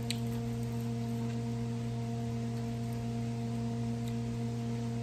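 A steady, even hum made of several constant tones that neither rise nor fall, with a faint click just after the start.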